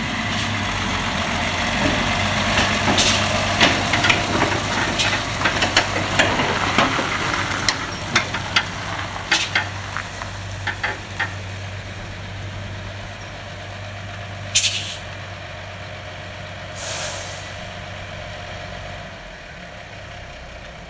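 Unimog truck's diesel engine running steadily as it hauls a trailer of logs, with a run of sharp clicks and knocks over the first half. About two-thirds of the way through come two short hisses of air from the air brakes, the first the louder, and the engine then grows quieter.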